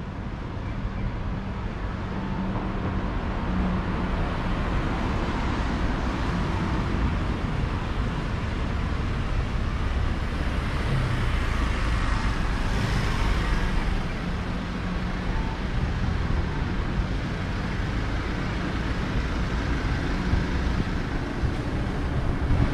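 Steady road traffic noise, with one vehicle passing close by about halfway through.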